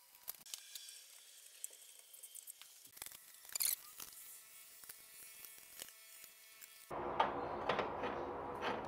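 Faint small metal clicks and scrapes of hand tools working a steel hub, with one brief scrape about three and a half seconds in; about seven seconds in a louder steady noise with knocks sets in as the metal roller's handwheel is turned by hand.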